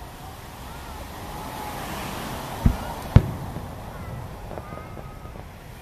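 Two aerial firework shells bursting with sharp booms about half a second apart, a little under three seconds in, the second louder, over faint voices.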